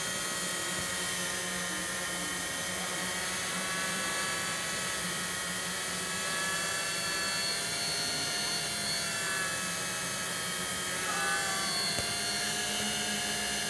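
Hexacopter's six Digitech X80 brushless motors spinning 11x5-inch Graupner propellers, a steady multi-toned whirring as it hovers. The pitch of the whine drifts slightly up and down as the motors adjust.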